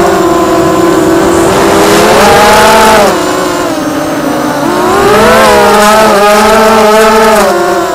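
Blackout Mini H FPV quadcopter's brushless motors and propellers whining loudly, heard from the camera on the quad itself. The pitch drops and the sound eases about three seconds in as the throttle comes off, then climbs again in several rising and falling sweeps before holding steady.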